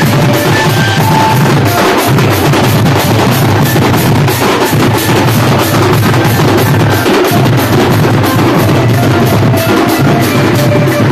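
A street band party's marching drums, large drums carried and beaten by the players, drumming loud and fast in a steady, dense beat, with a faint melody over it.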